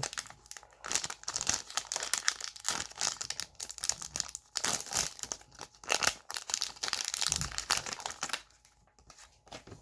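A wrapper on a pack of hockey trading cards being torn open and crinkled by hand, a dense crackling that stops about eight and a half seconds in.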